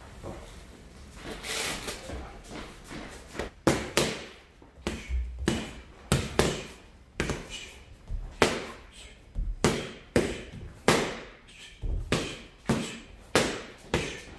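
Boxing gloves smacking into leather paddle focus mitts: a run of sharp slaps, often in quick pairs like one-two combinations, starting about three and a half seconds in and keeping on steadily.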